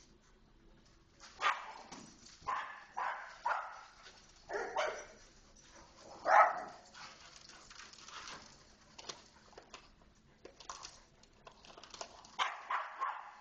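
Dogs barking in short, sharp barks: a string of them from about a second in, a quieter stretch, then a quick run of barks near the end.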